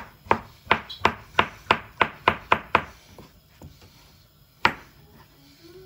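Chef's knife slicing an avocado half on a plastic chopping board: a quick run of about ten sharp taps of the blade on the board, about three a second, then a couple of fainter taps and one last loud one.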